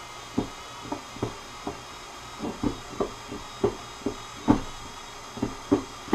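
A Milwaukee cordless drill churning a metal ice cream canister packed in ice and rock salt in a wooden bucket: irregular clunks, about two to three a second, as the turning canister knocks against the ice, over the drill's faint steady motor.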